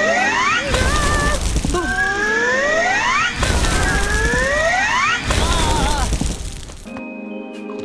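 Cartoon sound effects over music: repeated rising whistle-like swoops, with three loud crashes. It drops to quieter steady tones near the end.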